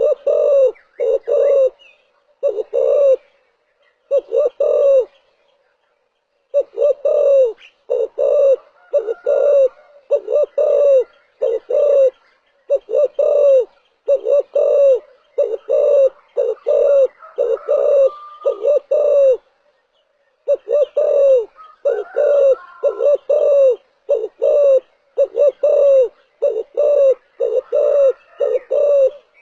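Spotted dove cooing: runs of low, arched coo notes repeated in phrases, with brief pauses about six seconds in and about twenty seconds in.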